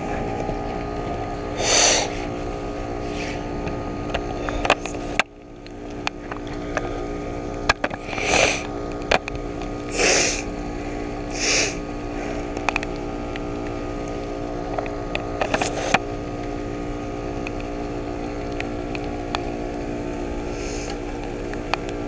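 Outdoor heat pump units running: a steady hum of compressors and condenser fans holding several constant pitches. Short bursts of hiss rise and fall over it a handful of times, and the sound drops suddenly for a moment about five seconds in.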